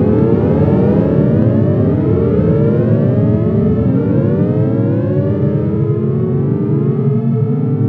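DIN Is Noise software synthesizer drones: many overlapping tones sliding up and down in pitch over a steady low hum. Near the end the sliding eases and the tones settle into longer held pitches.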